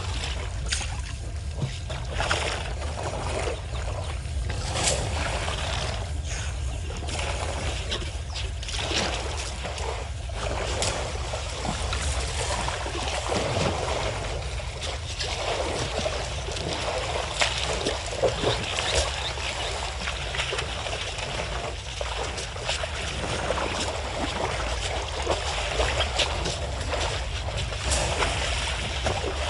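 Elephants and a swimming elephant calf splashing and sloshing water in a waterhole, with irregular splashes over a steady low background rumble.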